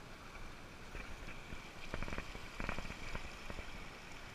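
Shallow, rocky mountain stream running and burbling, with small splashes and water clicks as a small rainbow trout is lowered back into the water by hand, most of them about two to three seconds in.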